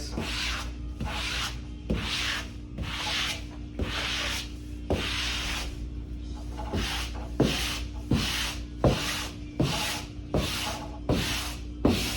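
A wallpaper smoother is swept across pasted mural paper on a wall in short, regular rubbing strokes, about one and a half a second, pressing out air bubbles. A steady low hum runs underneath.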